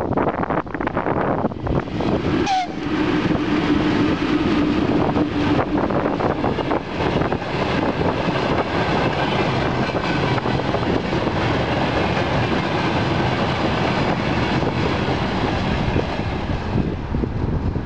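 Freight train of tank cars hauled by a VL80-series electric locomotive passing close by: a loud, steady rumble of wheels on rails with rapid clicks over the rail joints. About three seconds in, a steady tone joins for about three seconds.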